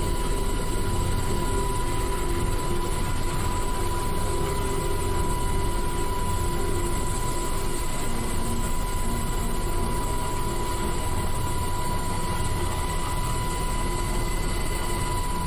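Helicopter cabin noise with the side door open while hovering for a hoist rescue: steady engine and rotor noise with a low rumble and a constant high whine.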